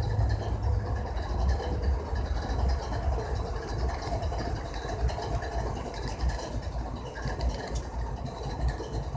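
GE ES44AC diesel locomotive idling at close range, its GEVO V12 engine giving a steady low rumble, with a few light clicks near the end.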